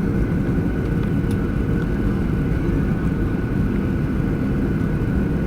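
Steady cabin rumble inside a Boeing 737 jetliner: engine and airflow noise, with faint steady high tones over the low roar.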